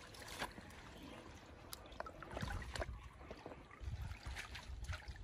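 Faint splashing and trickling of pond water as a wet fishing net is handled and lifted, with scattered small splashes and a brief low rumble about four seconds in.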